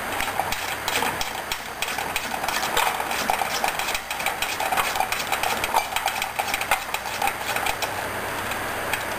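Hand ratchet clicking in quick, uneven runs as it is swung back and forth to back out the bolt holding the trim tab on an OMC Cobra sterndrive lower unit. The clicking stops shortly before the end.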